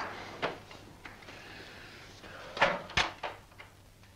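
A wooden door being opened and shut: a latch click about half a second in, then two knocks close together near the three-second mark as it closes, followed by a few light clicks.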